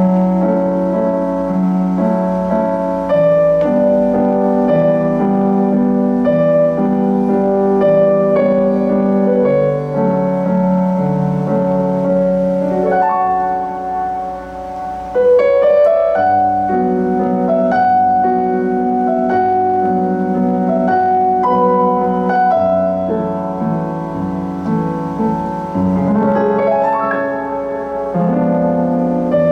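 Solo keyboard played with a piano sound: sustained chords under a moving melody. It softens briefly about fourteen seconds in, then comes back louder.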